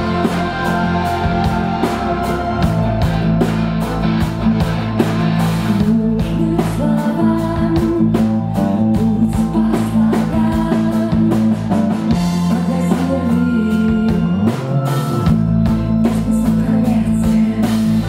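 Live rock song played by a band with a string section, with a steady drum beat under the strings and a woman singing into a microphone.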